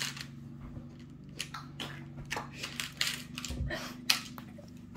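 Plastic Lego pieces clicking and clattering as they are handled: a scattered series of sharp little clicks. Under them runs a steady low drone of a lawn mower outside.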